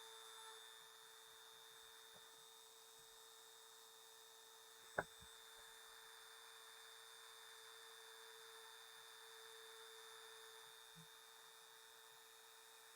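Near silence: a faint steady electrical hum with a high whine, and a single short click about five seconds in.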